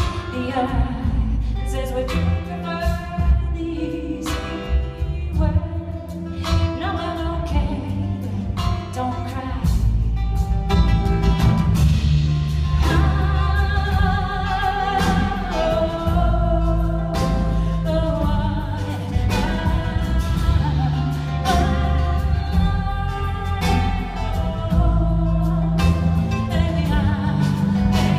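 Live band music: acoustic guitar with drums and bass and a singing voice. The low end and overall level grow heavier about ten seconds in.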